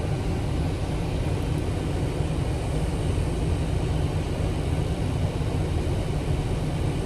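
Steady low rumble of a car driving, heard from inside the cabin: road and engine noise with no distinct events.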